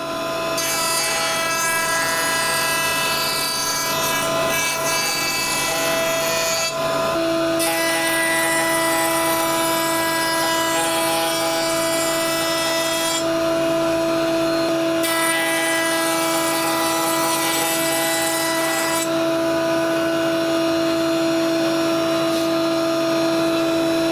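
Overhead router running with a steady whine while its bit cuts wood, a rush of cutting noise coming over the motor in three long passes of several seconds each.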